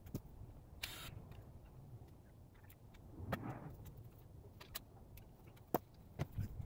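Faint scattered clicks and knocks from a cordless drill and wooden form boards being handled around a fresh concrete pad, with a short rustle about a second in and the sharpest clicks near the end.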